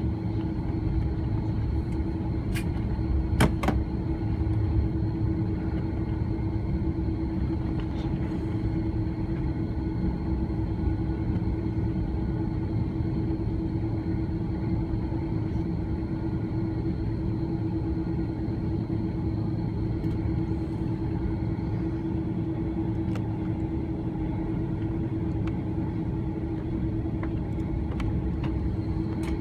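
Steady cabin rumble and hum inside an Airbus A330-300 on the ground, with a constant mid-pitched tone running through it. There are a couple of sharp clicks about three seconds in.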